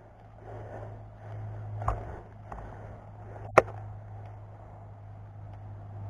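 Rustling movement over a steady low hum, with a soft knock about two seconds in and a single sharp crack about three and a half seconds in.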